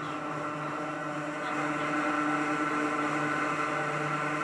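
Hakone Tozan Railway Moha 1 electric railcar running, heard from aboard. Its nose-suspended traction motors and gearing give a steady hum with a held tone, which grows louder about one and a half seconds in.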